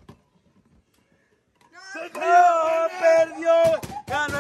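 A soft click, then near silence for about a second and a half, then a male voice comes in loud, singing long held notes.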